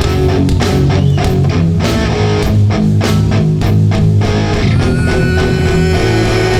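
Live hardcore band playing a slow song: electric guitars, bass guitar and drums at full volume, with regular drum and cymbal hits. About five seconds in, long held notes come in over the beat.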